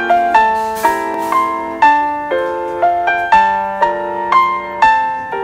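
Background music: a gentle piano melody, one note struck about every half second and left to ring.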